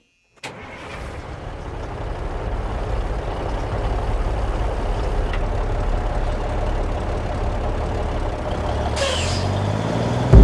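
Large diesel truck engine running with a steady low rumble that swells over the first few seconds, with a short burst of air hiss about nine seconds in.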